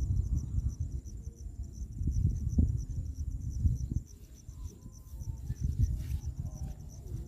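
Insects trilling steadily in a rapid, even pulse, over a low, gusty rumble of wind on the microphone.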